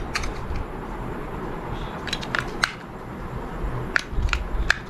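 Small plastic clicks and taps as batteries are pressed into a TV remote's battery compartment: a few short, sharp clicks in three quick groups.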